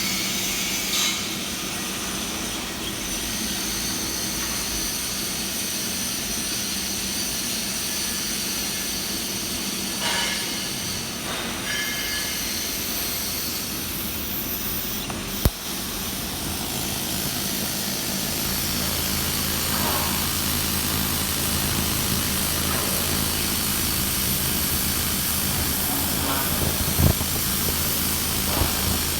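Steady machinery hiss with a low hum, and one sharp click about halfway through.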